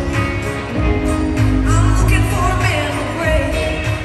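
Live country band performance: a woman singing lead over acoustic guitar, drums and a steady bass, with the voice sliding between notes.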